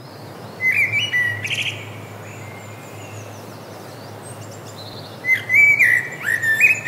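A bird singing: a short burst of sharp chirping whistle notes about a second in, then a longer run of them from about five seconds on, over a steady low hum.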